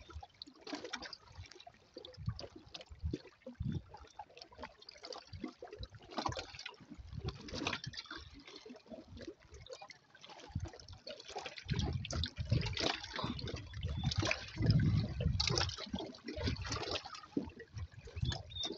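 Small waves lapping and splashing against shoreline rocks in irregular bursts, with heavier low rumbling surges from about twelve to sixteen seconds in.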